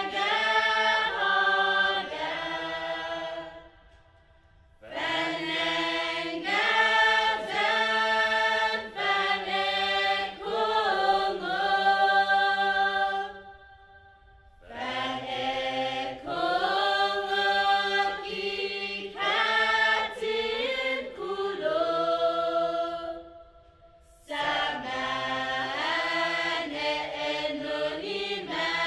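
A choir of voices singing a chant-like song in long, held phrases, broken by three short pauses.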